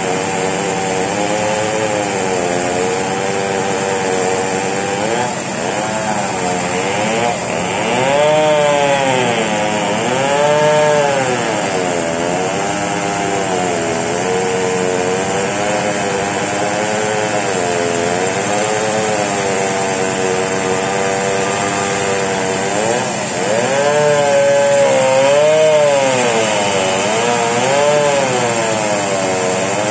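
Chainsaw cutting lengthwise into a very large merbau log. The engine runs steadily, its pitch sagging under the load of the cut and rising again every second or two.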